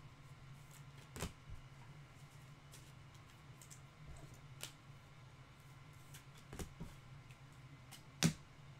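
Stiff Topps Chrome trading cards clicking and sliding against each other as a stack is flipped through by hand: a few scattered sharp clicks, the loudest near the end, over a low steady hum.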